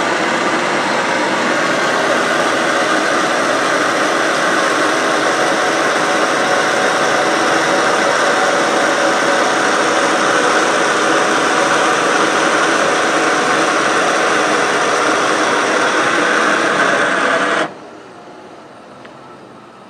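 Electric roof-lift motor of a Palomino Real-Lite SS-1251 pop-up truck camper running steadily as it raises the soft-sided top. The sound is loud and even, and it cuts off suddenly near the end.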